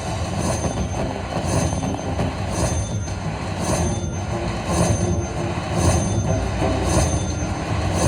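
Slot machine bonus-round sounds over dense casino floor noise, with a beat about once a second and faint chiming tones.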